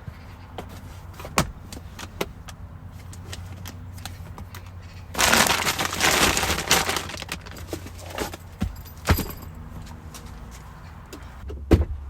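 Gear being handled and packed into the back of a car: a few sharp knocks and clatters, and a loud rustling for about two seconds some five seconds in, over a steady low hum.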